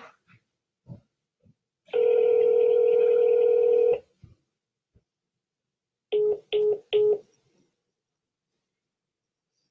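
Telephone call tones over the line: one long ringback tone, then about two seconds later three short beeps as the call drops without being answered. A few faint clicks come before the ring.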